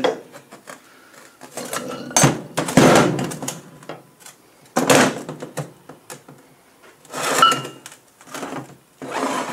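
Heavy steel differential parts handled on a metal workbench: about four loud clunks and clatters with scraping between, as the pinion gear and its bearing are worked out of the differential housing.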